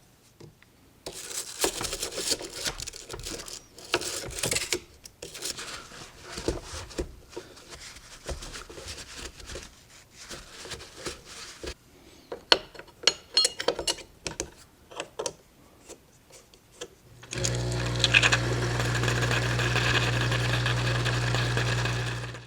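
Irregular clicks, taps and scraping of metal parts being handled on a Breville espresso machine. About seventeen seconds in, the machine's vibratory pump starts and runs with a steady hum and a hiss of water flowing through the group head.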